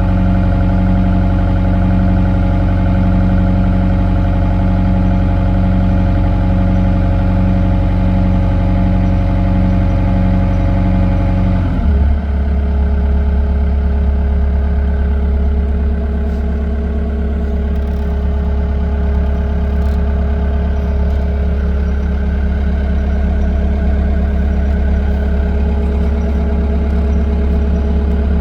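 Diesel engine of a CAT 242D3 skid steer loader running steadily. About twelve seconds in, its pitch drops as the engine slows to a lower speed, and it runs on steadily there.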